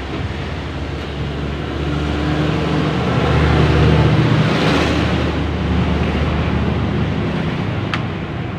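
Motor vehicle engine running nearby, a steady low drone that swells louder between about three and five seconds in, then eases off.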